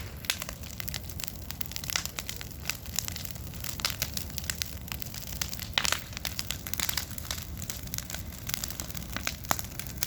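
Wood campfire crackling: a constant run of irregular snaps and pops, a few sharper ones standing out, over a steady low rumble.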